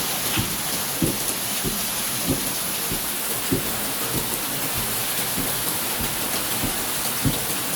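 Heavy rain falling steadily, with louder drops landing close by in irregular dull plops about once or twice a second.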